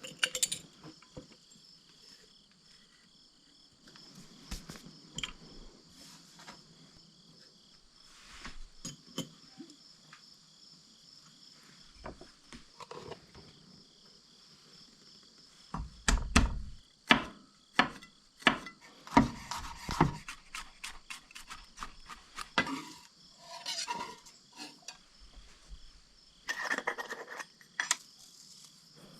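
Crickets chirping steadily in the background while kitchen utensils and dishes clink, tap and knock during food preparation. The handling is sparse at first and busier from about halfway through, with a few heavier knocks.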